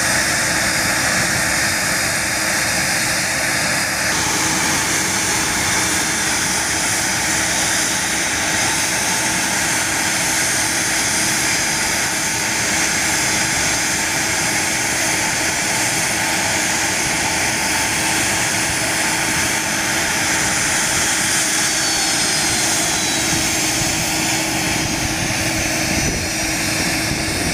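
Jet aircraft engines running: a steady rushing noise with a constant whine. The sound shifts about four seconds in, and a faint falling whine comes in past the middle.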